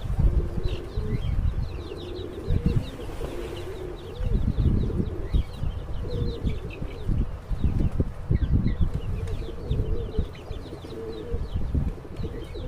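Tehrani tumbler pigeons cooing in low, wavering calls, over a busy background of quick, high chirping.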